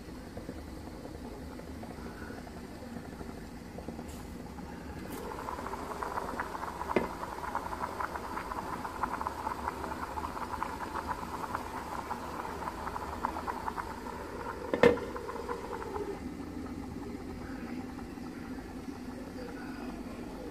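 Water boiling hard under a plate of fish in a steaming pan: a rapid, fizzing bubbling that grows louder for about ten seconds while the glass lid is off. Near the end of that stretch a sharp clank as the glass lid is set back on the pan, after which the bubbling drops back to a low hum.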